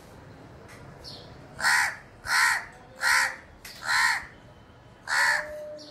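House crow cawing five times in a row, harsh calls about three-quarters of a second apart. The last caw comes after a slightly longer pause.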